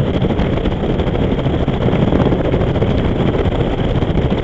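Cruiser motorcycle running steadily at road speed, its engine and exhaust mixed with wind rushing over the microphone.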